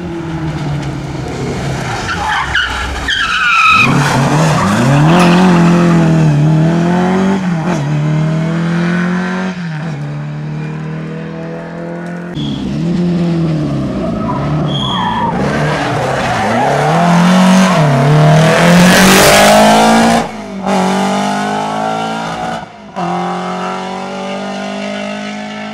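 Rally cars at full throttle racing past one after another, engines revving up and dropping with each gear change. The loudest pass comes about three quarters of the way through, and the sound cuts off abruptly a couple of times near the end.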